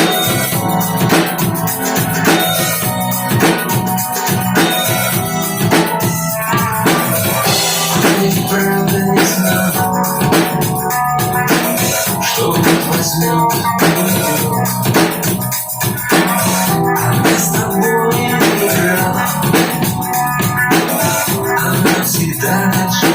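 Instrumental passage of a pop song: a steady drum-kit beat with bass drum and snare under keyboard chords, without vocals.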